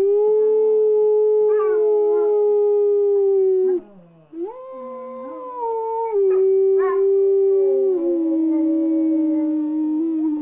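Pit bull howling in long, drawn-out howls, broken once about four seconds in, with a second lower voice sounding along with it at times.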